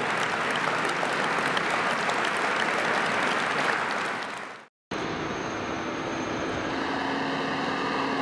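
Audience applauding steadily, fading out about four and a half seconds in. After a brief silence, a heavy military transporter truck's engine runs with a steady drone.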